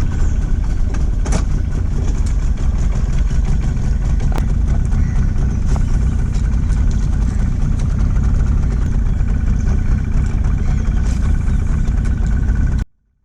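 Motorboat engine running steadily, a dense low drone with a few faint clicks on top. It cuts off abruptly near the end.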